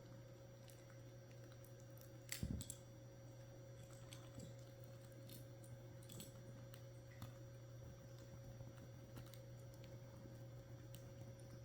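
Faint scattered clicks and taps of plastic Lego pieces as caique parrots pick at and pull apart a Lego model, with one louder clack about two and a half seconds in, over a low steady hum.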